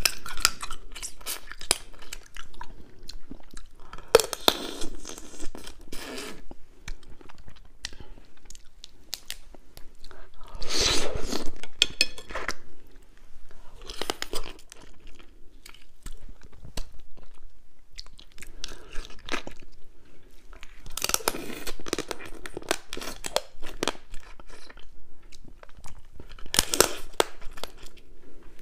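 Close-miked crunching and chewing as a person bites through spicy marinated crab shell and legs, coming in bursts every few seconds with quieter pauses between; the loudest bursts are about four, eleven and twenty-one seconds in.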